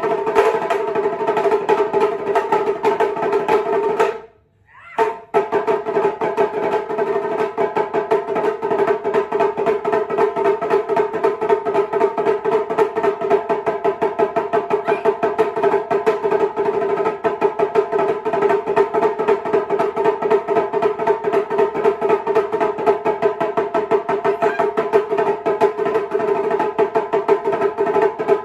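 Two shime-daiko, small rope-tensioned taiko drums, struck with wooden bachi in fast, dense strokes that ring at a steady high pitch. About four seconds in the playing breaks off for about a second, then resumes.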